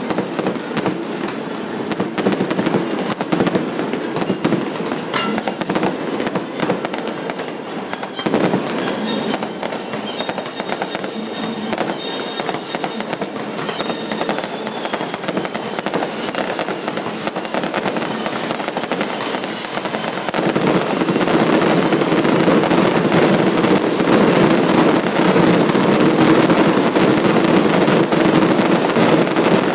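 Fireworks display: a continuous barrage of bangs and crackles, getting louder and denser about twenty seconds in.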